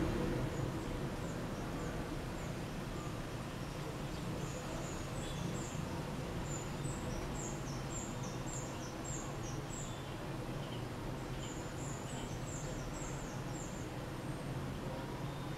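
A small bird chirping in quick runs of short, high, falling chirps, over a steady background hum.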